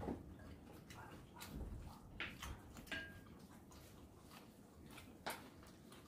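Quiet eating sounds: scattered faint clicks and taps of chopsticks and spoons against bowls, with a slightly louder tap at the start and another about five seconds in.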